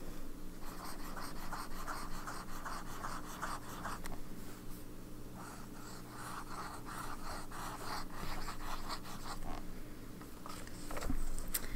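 Fountain pen nib (Sailor 1911S, Zoom nib) scratching across paper while writing a run of connected loops, with a short pause about halfway through.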